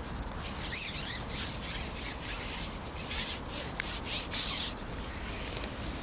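Carbon fishing pole being pushed back out over its rest: a run of short rubbing strokes, about two a second.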